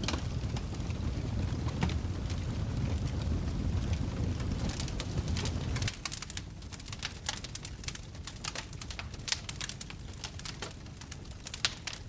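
Wood fire crackling in a fireplace, with many sharp pops and snaps. A low rumble under the crackles cuts off abruptly about halfway, leaving the crackling clearer and more frequent.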